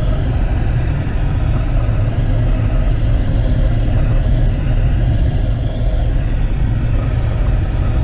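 Steady airflow rumble in the cockpit of a Schleicher ASK 23 glider in flight, air rushing over the canopy and fuselage.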